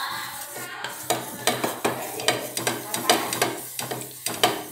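Oil being wiped over a dosa tawa by hand with a folded pad: a run of rubbing strokes, about two or three a second.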